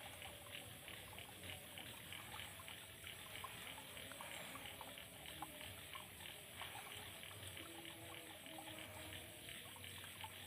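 Faint night-time outdoor ambience: a steady hiss with rapid, repeated chirping of insects and a few small clicks.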